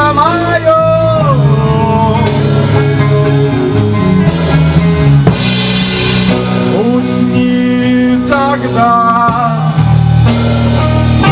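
Rock band playing, drum kit and guitar going steadily, with a man singing into a microphone: long held notes that slide in pitch near the start and again past the middle.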